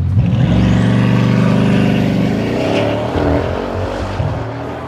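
A supercar engine accelerating hard. The note climbs steadily in pitch for about two seconds, changes abruptly near the middle like a gear change, then carries on at a lower pitch and fades as the car pulls away.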